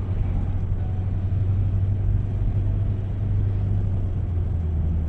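Steady low engine and road rumble inside a moving car.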